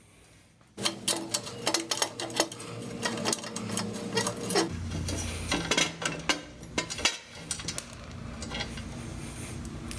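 Wrench clicking and clinking as the rear exhaust-pipe mounting bolt on a Harley-Davidson Shovelhead is loosened. The rapid, irregular metal clicks start about a second in and thin out after about seven seconds.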